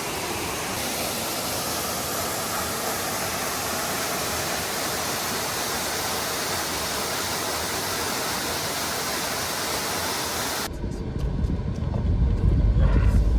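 Steady rushing of a waterfall. About eleven seconds in it cuts off abruptly to the low rumble of a car on the move.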